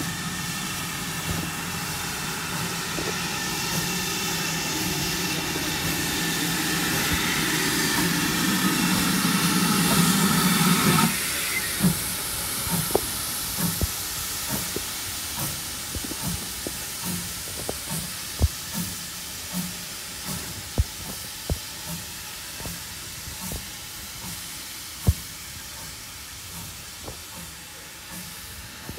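Steam hissing from GWR Large Prairie tank locomotive 5199, growing louder and then cutting off abruptly about eleven seconds in. After that, a softer hiss with a string of sharp, irregular clicks and knocks.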